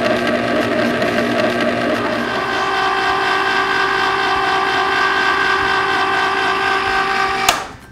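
Cuisinart ICE-21 ice cream maker running, its motor turning the frozen freezer bowl with a steady hum as it churns vanilla mix into soft ice cream. The hum shifts slightly in pitch a couple of seconds in. Near the end it stops with a click as the machine is switched off, the ice cream done.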